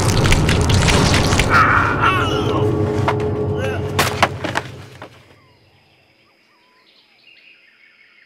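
Loud dramatic sound effects: booming hits and sharp strikes, with a man's wavering cries about two seconds in. Everything dies away about five seconds in, leaving faint bird chirps.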